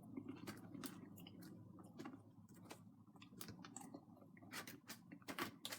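Quiet chewing and mouth sounds while eating: a scatter of small wet clicks and smacks, coming more often and a little louder near the end.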